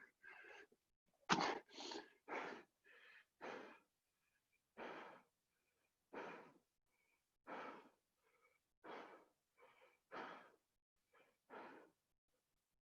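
A person breathing hard from the exertion of burpees, short forceful breaths in a steady rhythm, quicker at first and then about one every second and a half.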